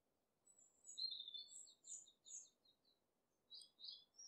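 Songbird chirping and twittering faintly: quick high-pitched chirps and short trills in two bursts, the first beginning about half a second in and the second near the end.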